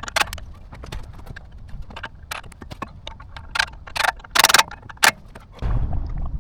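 Hand tools and metal parts clicking, knocking and clattering irregularly, with a few louder rattling scrapes about four to five seconds in and a low rumble near the end.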